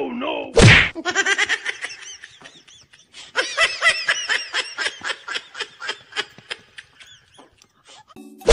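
A short up-and-down pitch sweep and a loud hit about half a second in, then a long run of rapid, pulsing laughter with a brief break about three seconds in.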